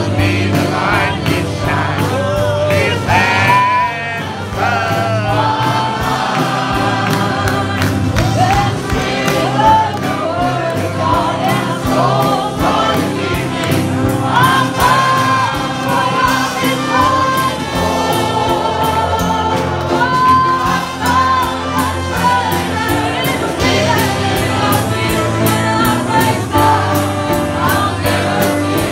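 A large congregation singing a gospel song together, many voices in chorus, with instruments playing along.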